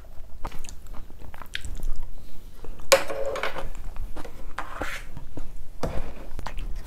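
Close-up chewing and mouth sounds of someone eating a mouthful of rice porridge, with many small wet clicks. There are a couple of louder noisy bursts about three and five seconds in.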